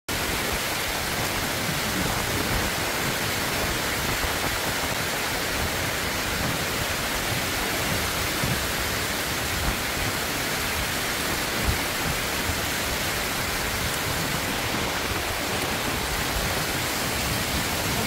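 Steady rushing of a shallow stream's water running over rocks and a low concrete apron.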